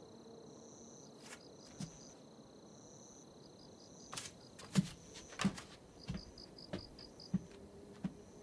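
Crickets chirping in quick pulsed trains over a steady high insect trill, a quiet night ambience. From about halfway, a series of soft knocks comes roughly every two-thirds of a second.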